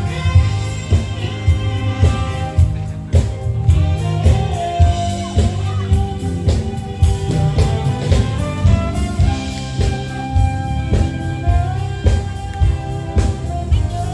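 Band music: a drum kit keeps a steady beat under a pitched melody line.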